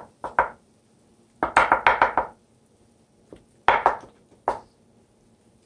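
A cooking utensil knocking against the pan in quick runs of taps, breaking up the egg yolks in the stir fry.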